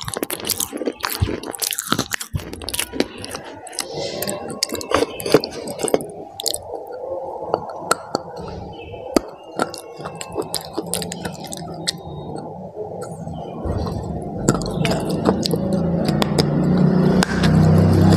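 Close-miked biting and chewing of something hard and brittle: many sharp crunches and clicks. A low rumble builds over the last few seconds.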